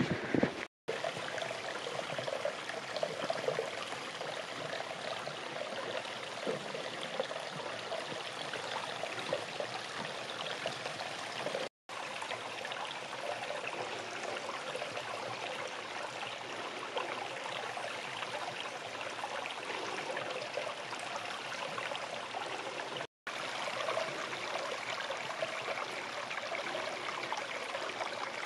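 A stream running: a steady rush of flowing water, broken by three very brief dropouts at about one, twelve and twenty-three seconds.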